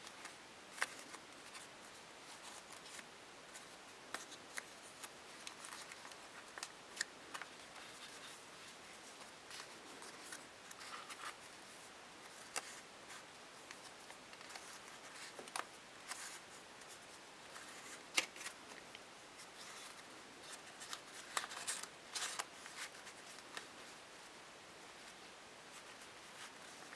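Folded paper crinkling and rustling in the hands as origami shuriken modules are slotted together: scattered sharp crackles of stiff creased paper at irregular intervals over a faint rustle.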